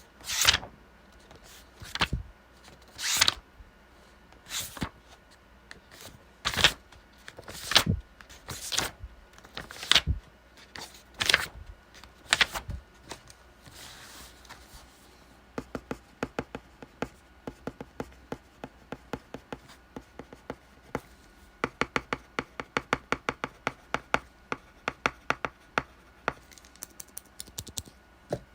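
Study-desk sounds used as a wake-up alarm: a run of loud scratchy strokes, one every second or so, then from about halfway quick light clicking taps, several a second, thickest near the end.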